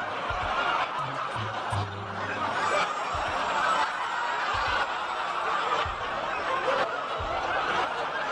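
Studio audience laughing, sustained and unbroken, with a soft low thud repeating about every second and a half underneath.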